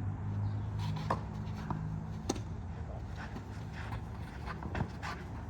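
Tennis ball struck by rackets during a doubles rally: a few sharp knocks, the loudest about two seconds in, over a low steady rumble.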